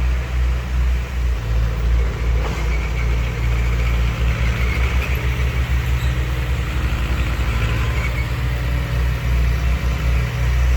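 Diesel engines of heavy earthmoving machinery running steadily with a deep rumble.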